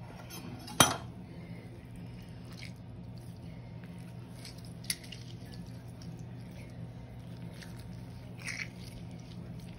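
Orange halves squeezed by hand over a bowl, with faint wet squishing and dripping of juice. There is a sharp knock about a second in and a smaller click near the middle, over a low steady hum.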